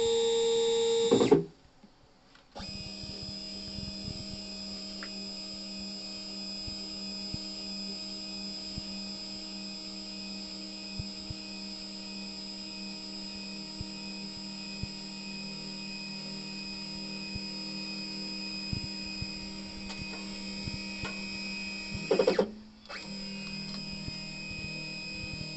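Stepper motors on a Boxford 125 TCL CNC lathe driving the cross and carriage slides, a steady whine of several held tones. It runs louder and higher for about the first second, stops for a moment, then carries on lower and quieter, with a short louder burst and a brief break about 22 seconds in.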